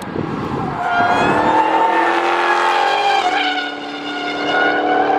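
Dodge Charger Hellcat's supercharged V8 running hard as the car slides sideways through a turn, with tires squealing. The dense pitched wail shifts pitch about three seconds in.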